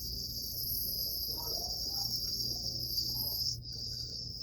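Steady high-pitched hiss of oxygen flowing from an oxygen tank through the tubing to a patient's mask. It dips briefly about three and a half seconds in.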